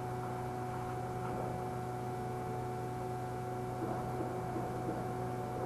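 Steady hum inside a tram's passenger cabin: a low rumble with a few constant tones over it.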